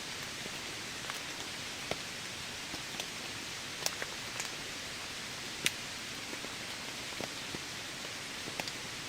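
Steady rain falling in a forest, an even hiss, with scattered sharp drop ticks, the loudest about four and six seconds in.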